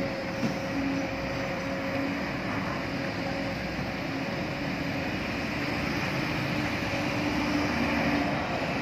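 Heavy diesel machinery running steadily: a Kobelco hydraulic excavator working beside a dump truck, with a van passing close by near the end.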